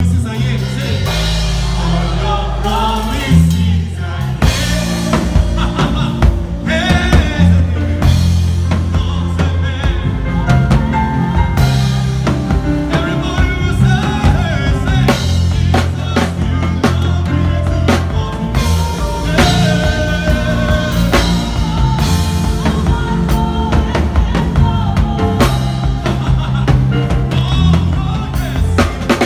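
Drum kit played with sticks in a fast, busy groove, with snare hits, rimshots and cymbals, over live band music with a steady bass line and a melody.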